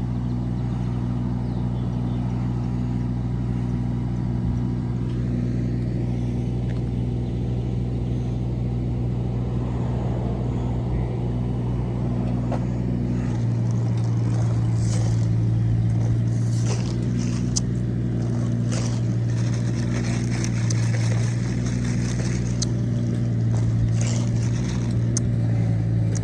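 An engine running steadily, its note getting stronger and slightly higher about halfway through, as if put under more load. Scattered knocks and scrapes of work on the site sound over it in the second half.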